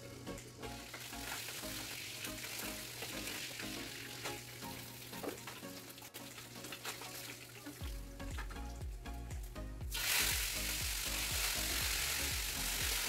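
Fish frying in hot oil in a pan on a gas stove, a steady sizzle that grows much louder about ten seconds in.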